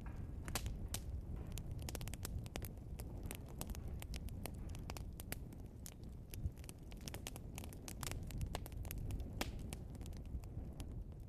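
Burning logs crackling and popping in a fireplace: frequent, irregular sharp pops over a low, steady rumble of the fire.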